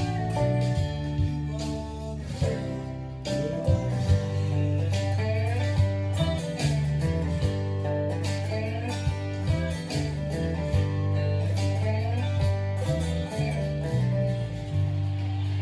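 Acoustic guitar played lap-style with a steel bar and fingerpicks: a picked melody whose notes slide between pitches, over low notes that ring on steadily.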